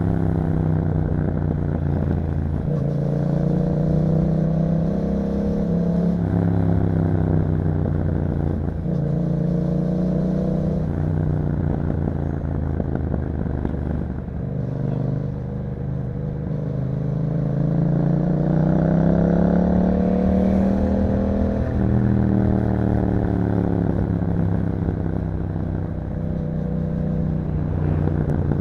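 2021 Yamaha MT-07's 689 cc parallel-twin engine through an aftermarket Akrapovič exhaust, heard from the bike while riding. The revs rise and fall several times as it accelerates, changes gear and eases off, with one long climb in the middle.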